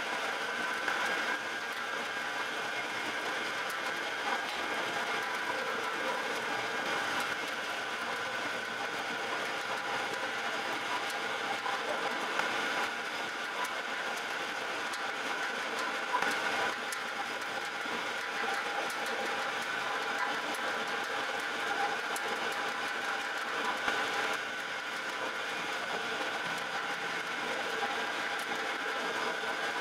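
Bakery dough kneading machine running steadily, its arm turning through flour and dough in a large steel bowl with an even mechanical drone. A few light knocks stand out briefly over it.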